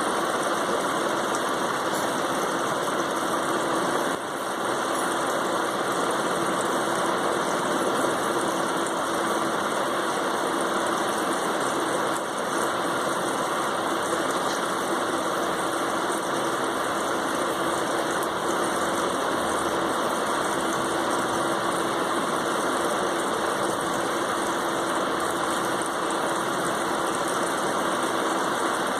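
Steady, unchanging mechanical hum and hiss with one faint low tone running through it.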